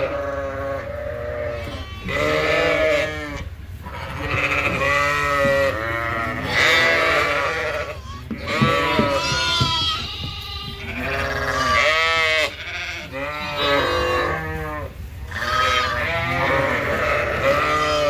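Many sheep and lambs bleating at once, their calls overlapping one after another without a break.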